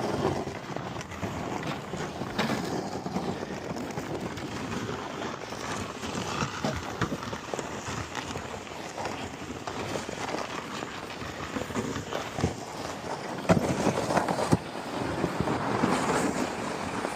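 Footsteps crunching through deep snow while a loaded gear sled is dragged over it, with wind buffeting the microphone.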